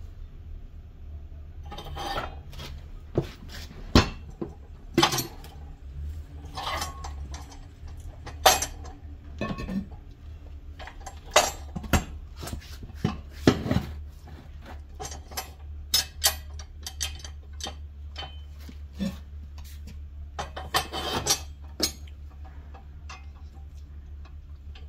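Irregular metallic clanks and knocks from a Harbor Freight manual tire changing stand as its steel bead-breaker lever and extension handle are worked against a small tire's steel rim to break the bead. A tire is shuffled and turned over in between.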